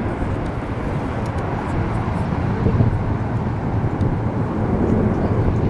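Steady jet engine noise from a formation of BAE Hawk T1 jet trainers in flight.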